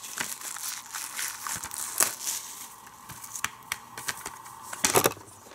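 Plastic shrink wrap being torn and peeled off a DVD case, crinkling and crackling with many sharp little clicks, and a few louder clicks near the end.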